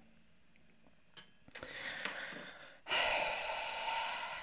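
A man breathing close to the microphone: a quieter breath, then a longer, louder breath out in the second half, as he braces himself before eating a spoonful of mayonnaise.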